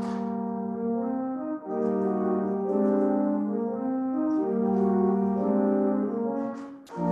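Pipe organ playing slow, sustained chords that change about every second, with a brief break between phrases about a second and a half in and again near the end.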